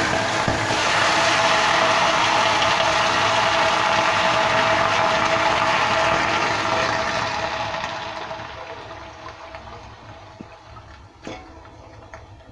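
Chicken pieces sizzling loudly in hot oil in a black iron kadai as they are stirred with a ladle. The sizzle dies down about eight seconds in, leaving a quieter hiss and a couple of ladle knocks on the pan near the end.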